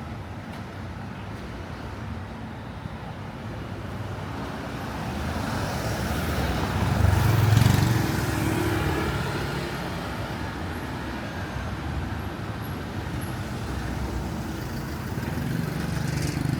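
Street traffic, with a motor vehicle passing close that swells to its loudest about seven to eight seconds in and then fades back into the steady rumble.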